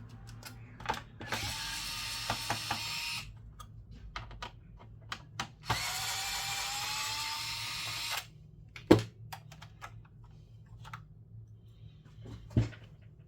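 Small electric screwdriver running twice, each run about two seconds long with a whine that rises as the motor spins up, taking screws out of a PS5 Slim console. Scattered clicks of small parts and tools follow, with one sharp click about nine seconds in and another near the end.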